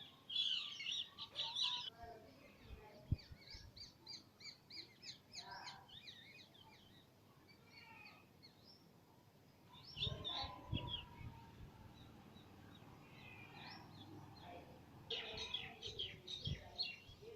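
Baby parrot chirping in bouts of quick, short, high notes. A single sharp tap about three seconds in.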